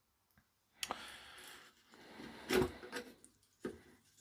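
Handling sounds from working on an opened TV remote: a few sharp clicks and knocks of plastic parts on the bench, with a stretch of soft rubbing from cleaning the circuit board.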